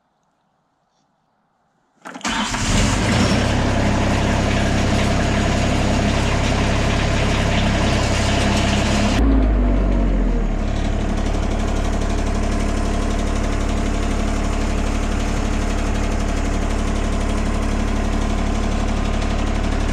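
A vehicle engine running steadily, cutting in suddenly about two seconds in. About halfway through, its sound changes and settles lower.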